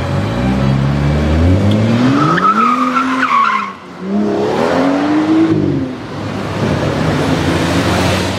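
BMW 640i's turbocharged straight-six revving hard under full acceleration, its pitch climbing for about two and a half seconds, while the rear tyres squeal as the car slides. About four seconds in the engine note drops briefly, then climbs again and falls away.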